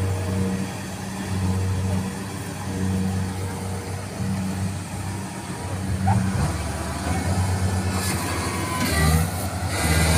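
Kubota combine harvester's diesel engine running with a steady hum that swells and fades; from about eight seconds in it turns louder and noisier as the machine works against the deep mud it is stuck in.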